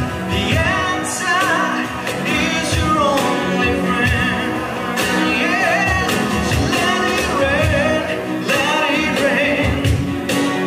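Live acoustic performance: a man singing over strummed acoustic guitar, with a cajon keeping the beat in low thumps and sharper slaps.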